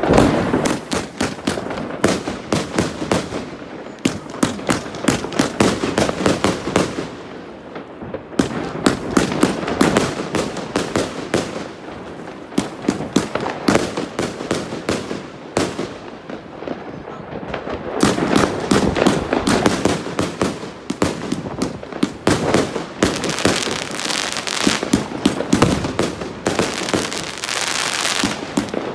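A 100-shot, 30 mm compound firework cake firing its shots in rapid volleys, with short lulls between groups.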